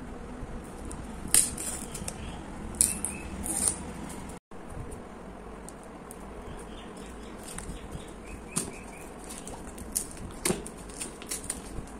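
Plastic shrink-wrap on a phone box crinkling and crackling in short, irregular bursts as a fingernail picks at and peels the seal sticker, over a steady low background hiss.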